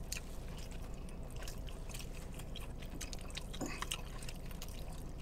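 People chewing and eating, with scattered soft, wet mouth clicks and smacks over a low steady hum.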